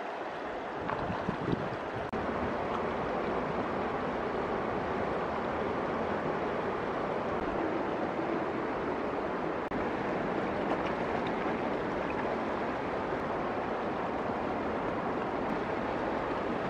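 Steady rushing of flowing river water, an even noise that holds at the same level throughout.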